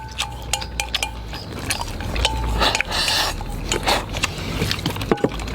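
Tableware clinking and tapping while someone eats: short ringing clinks of utensils on a bowl, many small clicks, and a couple of brief noisy bursts about halfway through.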